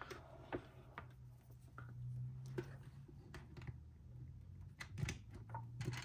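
Scattered faint clicks and knocks of small objects being handled, over a low steady hum.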